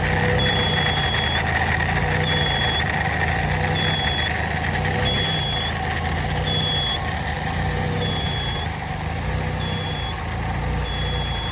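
Small engine with an ND2904NEW carburetor running unevenly, its speed rising and falling about every second and a half: surging, or hunting, which the owner puts down to the carburetor. A high-pitched beep-like whistle pulses on and off in step with each surge.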